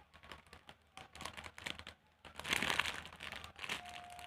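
Ice-cream-cone squishy toy being squeezed and handled close to the microphone: a crinkly rustling made of many small crackles, loudest in a burst about two and a half seconds in.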